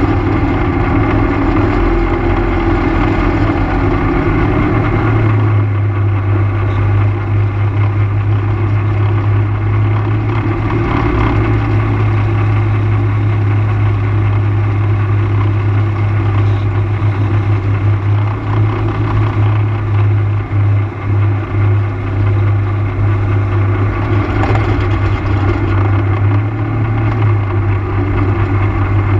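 ATV engine running steadily as the quad travels along a gravel road, with tyre noise from the gravel; the engine's note changes about five seconds in.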